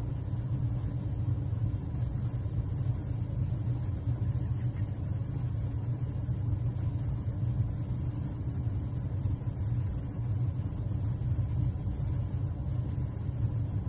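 Steady low engine rumble, like a motor idling, with no change in pace.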